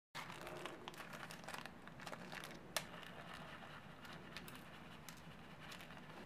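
Soft crackling and scattered small clicks as green cloud slime is handled in a plastic tub and rainbow sprinkles are shaken onto it from a little plastic bottle. One sharp click stands out nearly three seconds in.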